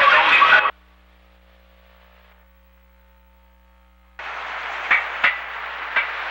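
Loud, dense noise that cuts off suddenly under a second in, then a few seconds of faint steady hum. Street noise comes back with several sharp knocks.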